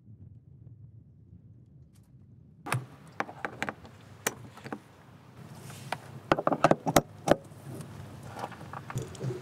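Brass fitting and flexible stainless steel hose clicking and rattling as the hose is screwed onto a camper van's water inlet. The clicks start about two and a half seconds in, with a quick run of sharp clicks a little after the middle.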